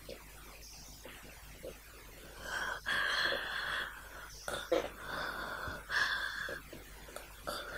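A man breathing heavily and breathily, close to the microphone. The breaths start a couple of seconds in and come as a run of drawn-out breaths about a second each, with short pauses between them.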